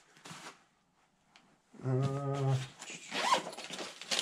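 A zipper on a nylon backpack being drawn, giving a steady buzz a little under halfway in, amid rustling of the bag's fabric and contents as things are packed inside.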